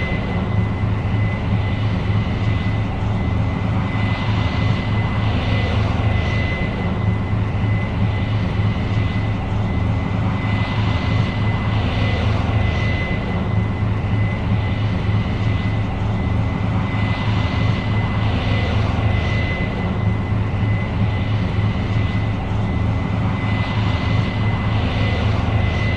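Case IH 8230 Axial-Flow combine running steadily while harvesting soybeans: a deep engine drone with a constant high whine over it, and a hiss that swells and fades about every six seconds.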